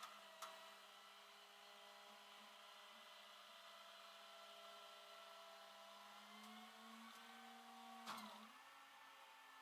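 Faint, steady whine from a Honda Civic's failing power steering pump, with a click about half a second in and another near the end, after which the pitch steps up slightly.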